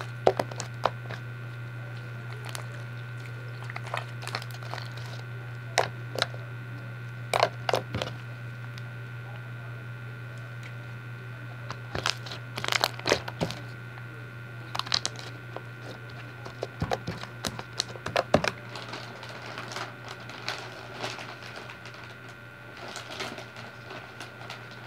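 Homemade foamy glue slime with holographic glitter being squished and kneaded by hand, giving scattered clicks and pops in clusters, busiest around the middle. A steady low hum runs underneath.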